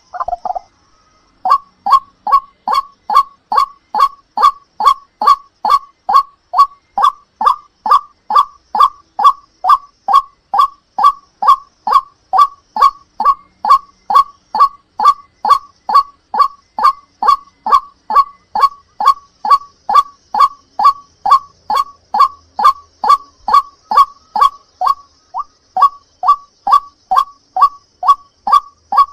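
White-breasted waterhen (ruak-ruak) call, played as a trapping lure: a long run of short, loud, honking notes repeated evenly at about two and a half a second, starting about a second and a half in.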